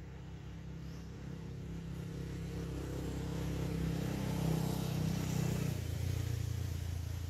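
A motor vehicle's engine running and passing close by: it grows steadily louder to a peak around the middle, then its pitch drops a little near the end as it moves off.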